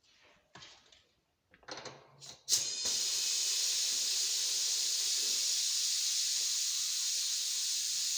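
A few light handling knocks, then about two and a half seconds in compressed air suddenly starts hissing steadily from a leak in the air hose line. The hiss is loud and high-pitched.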